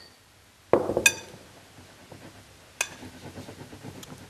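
Metal fork clinking against a glass mixing bowl while grated pumpkin and breadcrumbs are stirred: a soft thud and a bright ringing clink about a second in, another lighter clink near three seconds, with faint rustling of the filling between.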